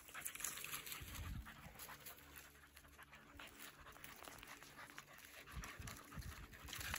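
Beagles panting and sniffing, faint, with small scattered clicks.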